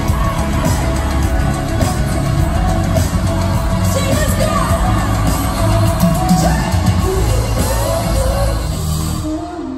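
Live pop music through an arena PA: a singer over a loud backing track with heavy bass. The music drops away near the end.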